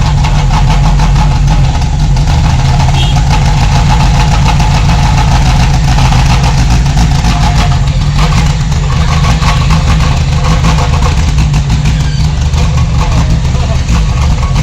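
Toyota Kijang petrol engine running steadily at a loud, even level, close to the microphone.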